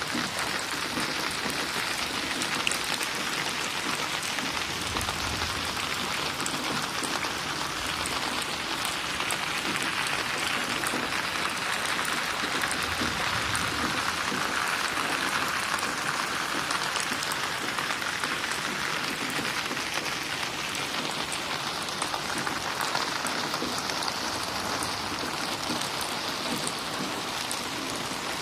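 Steady rain falling, an even hiss with many individual drops ticking and splashing.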